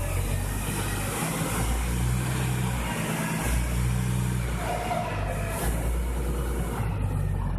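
Heavy vehicle engine running, its low note rising and falling.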